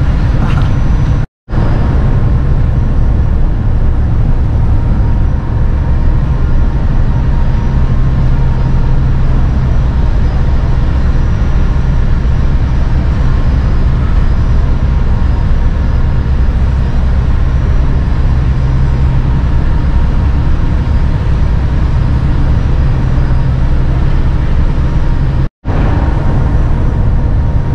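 Steady low drone of a car ferry's engines on the enclosed car deck, with a few faint steady tones above the rumble. It cuts out for an instant twice, about a second in and near the end.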